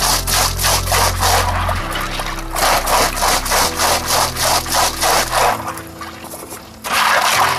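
Background music with a steady beat over held bass notes that change every couple of seconds, dropping softer for about a second near the end.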